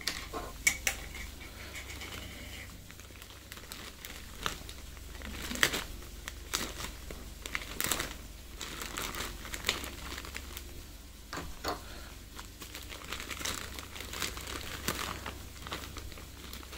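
Plastic courier mailer bag crinkling and rustling in scattered bursts as it is handled, cut and torn open.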